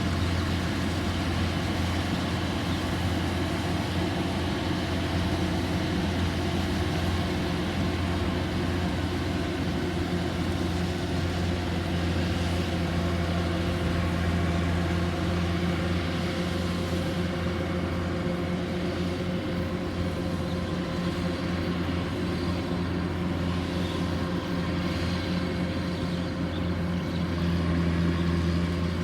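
Kubota rice combine harvester's diesel engine running steadily under working load, a continuous low drone, slightly louder near the end.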